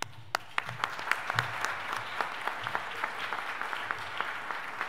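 Audience applause: many people clapping, starting at once and building within the first second, then carrying on steadily.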